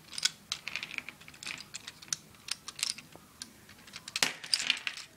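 Small plastic Lego pieces clicking and clattering as they are handled and fitted together on a Lego train motor: an irregular run of small clicks, with a louder, busier cluster about four seconds in.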